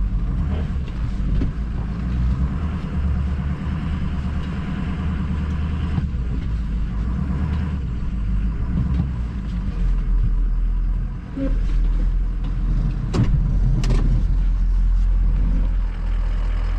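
Pickup truck engine running hard under heavy load, straining to pull a stuck vehicle out of the mud. Its low drone dips briefly partway through, and two sharp knocks come near the end.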